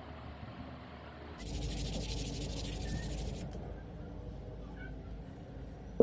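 A steady hiss lasting about two seconds, starting and stopping abruptly, over a low background hum.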